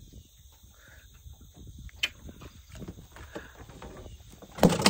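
Faint scattered clicks and rustles of a crappie being unhooked and handled in a canoe, with one sharp click about two seconds in and a loud clatter near the end.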